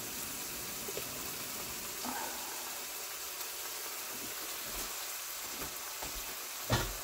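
Apples, acorn squash and beets sizzling steadily as they sauté in a skillet, with a few light clicks and a single knock near the end.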